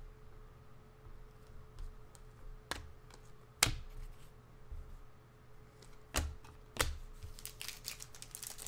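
Sharp clicks and taps of stiff trading cards being handled and set down on a tabletop: a few spaced apart, the loudest about three and a half seconds in, coming quicker near the end. A faint steady hum runs underneath.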